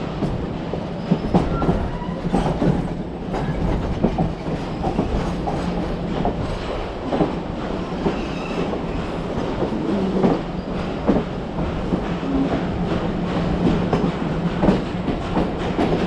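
Riveted steel passenger coach rolling slowly along the track: a continuous rumble under a steady low hum, with irregular clacks and knocks from the wheels and running gear.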